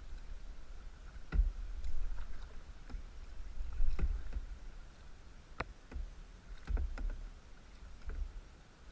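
Kayak paddling: irregular sharp knocks and splashes of the paddles in the water and against the boat, about eight in all, over a low wind rumble on the microphone.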